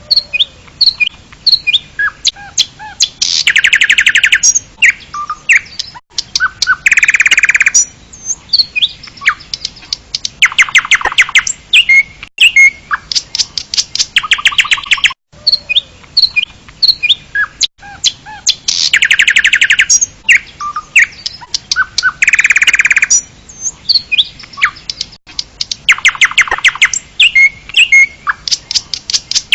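A songbird singing a varied song: scattered sharp chirps and whistles between rapid trills that each last about a second. The same roughly 15-second stretch of song plays twice, as a loop.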